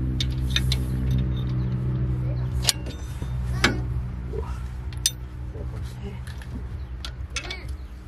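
A motor running with a steady low hum, with a few sharp clicks or knocks about three and four seconds in and again near five seconds.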